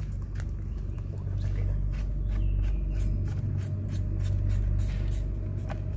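Premixed two-stroke fuel being poured from a plastic bottle into a small engine's fuel tank, with a run of light crackling clicks from the bottle, over a steady low rumble.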